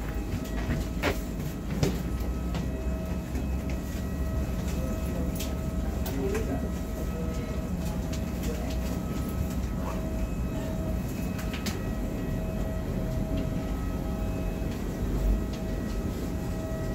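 Steady machinery rumble and hum inside an airport jet bridge, with a thin steady whine over it and scattered small clicks and knocks from passengers shuffling in the queue.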